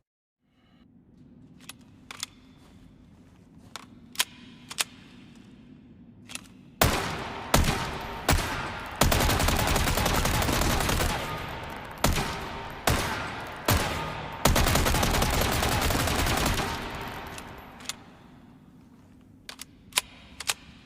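Submachine gun firing: a few scattered single shots, then short bursts and two long bursts of rapid automatic fire lasting a couple of seconds each, then a few single shots near the end.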